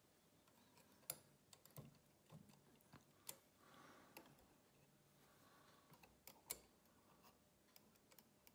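Faint, irregular light clicks of metal tweezers touching the brass parts of a Breguet carriage clock movement, with a few sharper clicks about a second in, past three seconds and past six seconds.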